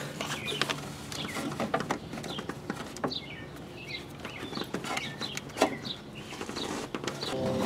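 Birds chirping in short falling calls, over small clicks and knocks from wire connectors and terminals being handled. Near the end a steady hum begins.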